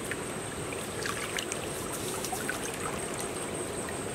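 Shallow muddy stream water splashing and dripping as hands and a bamboo spear move through it, with a cluster of small splashes and drips about a second in.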